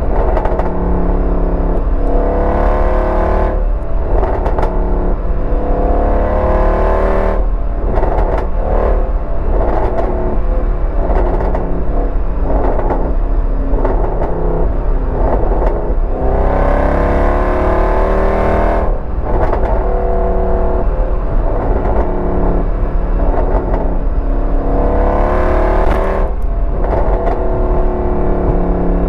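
Exhaust of a 2014 Mercedes C63 AMG's 6.2-litre V8, with the secondary cats and resonators deleted (straight-piped), recorded from inside the trunk while cruising at highway speed. It is a loud, continuous drone whose pitch rises slowly several times as the car pulls, with harsher stretches in between.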